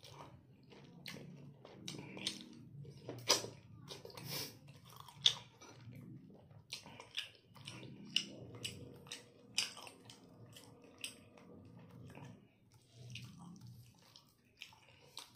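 Close-up chewing of a person eating braised pork belly adobo and rice with his hand, with irregular sharp wet clicks and smacks of the mouth.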